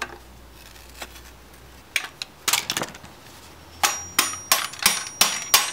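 Hammer blows on an aluminium amplifier heatsink, knocking the circuit board loose. A few light clicks and knocks come first, then from about four seconds in a steady run of sharp blows, about three a second, each with a short metallic ring.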